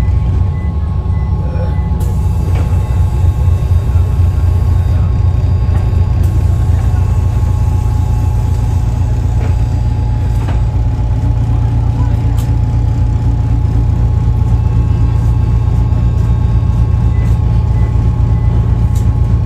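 City bus running, heard from inside the cabin: a steady low engine and road rumble with a thin constant whine over it.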